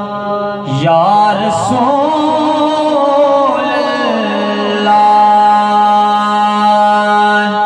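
A man chanting a naat through a microphone and PA: his voice winds up and down in a melismatic line for about three seconds, then settles into a long held note, over a steady low drone.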